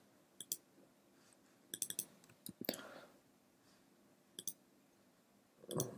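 Sparse clicks from a computer keyboard and mouse during code editing, coming in small groups of one to three a second or two apart, with a louder, fuller noise near the end.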